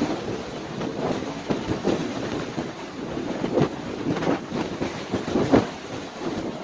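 Strong snowstorm wind blowing in uneven gusts and buffeting the microphone, a rough rumbling noise with repeated sudden surges.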